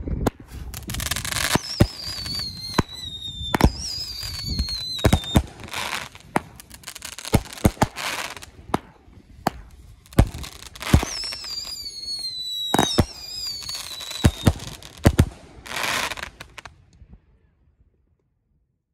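Consumer aerial fireworks firing: a run of sharp bangs and hissing launches, with whistles that fall in pitch about two seconds in and again about eleven seconds in. The firing dies away near the end.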